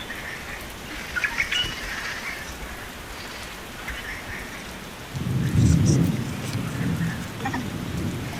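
Steady rain falling, with scattered drips, and a roll of thunder that starts suddenly about five seconds in and slowly fades.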